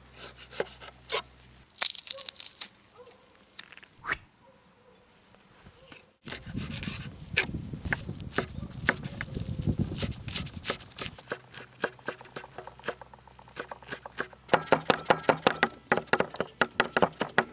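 Food preparation sounds: scattered clicks and rustling with some tearing, then a quick run of sharp taps, about four a second, near the end.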